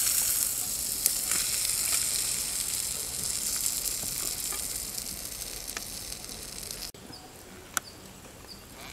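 Masala-coated fish sizzling in oil on a dosa tawa, cooked through. The sizzle slowly fades, then cuts off suddenly about seven seconds in, leaving faint chirping and a sharp click.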